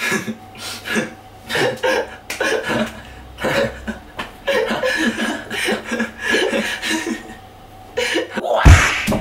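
A young man's voice talking and laughing in short bursts, with a loud thump near the end.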